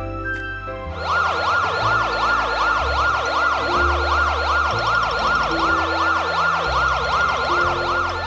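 A siren sounding in a fast rising and falling wail, about two sweeps a second, starting about a second in, over background music.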